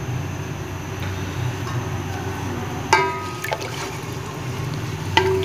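A spatula stirring thin broth in a cooking pot, the liquid swishing, with a steady low hum underneath. The spatula knocks sharply against the pot about three seconds in and again near the end.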